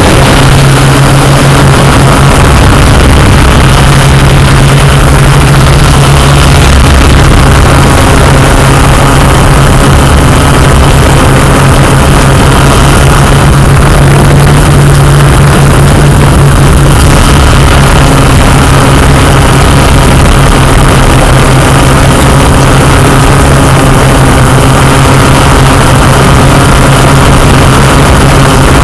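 Yuneec Q500 quadcopter's electric motors and propellers running, heard very loud and close up. It is a steady, noisy whir with a low hum that shifts a little as the drone flies low.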